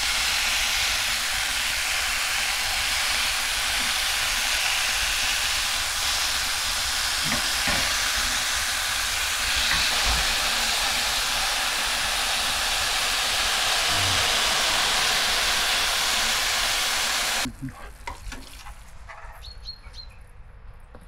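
Bacon sizzling in a frying pan on a portable gas stove, a steady loud hiss with a few soft knocks of the spatula against the pan. The sizzle cuts off suddenly near the end, leaving a quieter stretch with a few light clicks.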